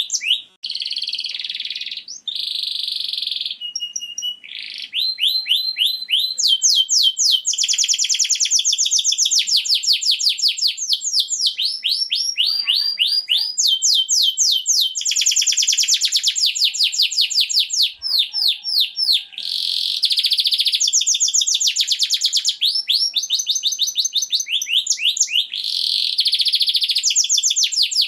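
Domestic canary singing a long, high-pitched song of rapid trills and buzzy rolls, phrase after phrase, with only brief breaks between them.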